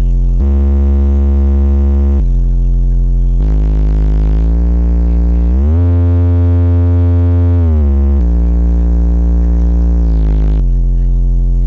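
A large sound system's subwoofers play a sound-check sequence of deep, loud, held bass tones. The pitch changes in steps every second or two, glides smoothly upward about six seconds in and slides back down near eight seconds.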